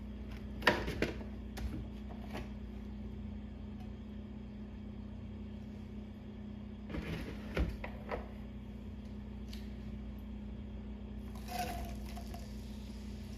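A steady low hum under a few light knocks against a cooking pot about a second in and again around seven to eight seconds in. Near the end there is a brief rustling clatter as sliced onion is tipped into the oiled pot.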